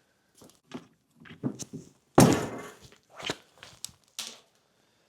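Hand tools and parts being handled in a car's engine bay: scattered clicks and taps, with one loud thunk a little over two seconds in.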